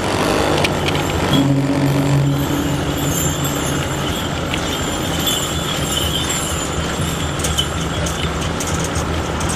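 Road traffic noise with motor vehicles running, including a steady low engine hum from about one to four seconds in.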